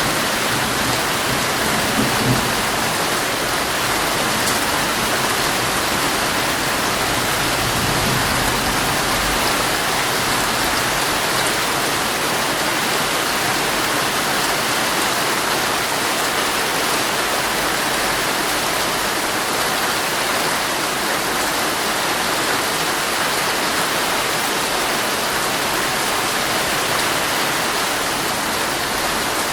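Heavy rain falling steadily on a tent, an even hiss of drops on the fabric. There is a brief low thud about two seconds in.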